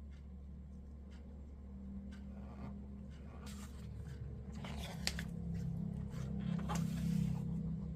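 Packaging handled by hand during an unboxing: brief rustling and scraping, with a sharp click about five seconds in, over a steady low hum.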